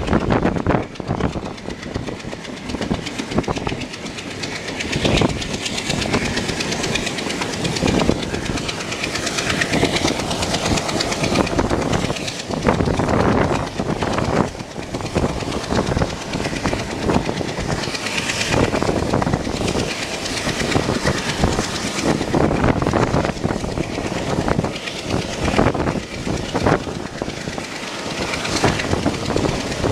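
Passenger train coach running along the track, heard from the coach window: the wheels clatter irregularly over the rails against a steady rush of running noise and wind.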